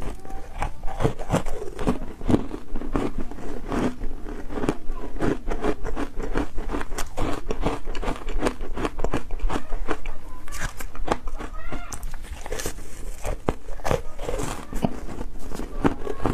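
Crunching and chewing of a mouthful of powdery ice coated in matcha powder: a dense, continuous run of soft crackling crunches as it is bitten and chewed.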